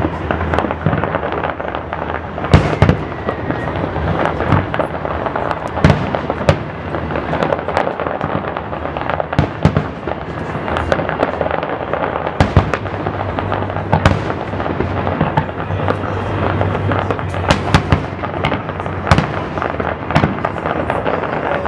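Aerial fireworks shells bursting in a dense, continuous barrage: many sharp bangs in quick succession over steady crackling.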